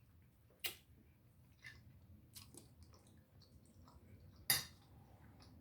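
Scattered sharp cracks and clicks of a seafood boil being eaten: crab shells being snapped and picked apart by hand, with the loudest crack about four and a half seconds in.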